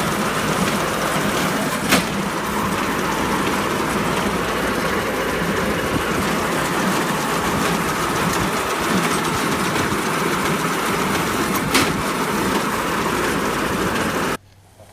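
Heavy farm machinery running steadily, with two sharp knocks, one about two seconds in and one near the end. The noise stops abruptly just before the end.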